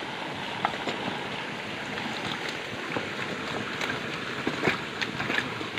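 Steady rushing hiss with scattered rustles and crackles of undergrowth and rubbish being handled, the crackles growing busier near the end.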